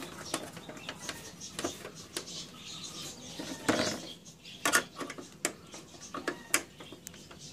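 Irregular clicks and knocks of the HP LaserJet 1300's plastic side cover as it is pressed and snapped onto the printer's metal frame by hand, with the sharpest knocks about halfway through and near the end.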